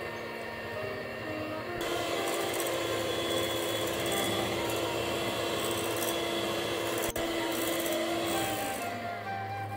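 Moulinex electric hand mixer beating eggs and sugar in a glass bowl, its motor whirring with the beaters churning the batter. It gets louder about two seconds in, and near the end its pitch slides down as it winds down.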